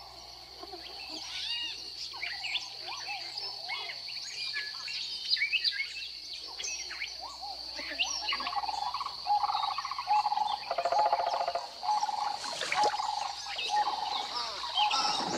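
Swamp wildlife soundscape: many birds chirping and calling over a steady high insect drone, with a fast, low rattling trill about eleven seconds in.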